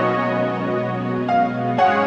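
Soft background music: slow sustained chords with a melody over them, the chord changing near the end.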